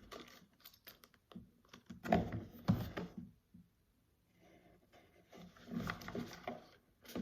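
Irregular rustling, crinkling and clicking of items and packaging being handled and unpacked, in bursts with a short pause in the middle.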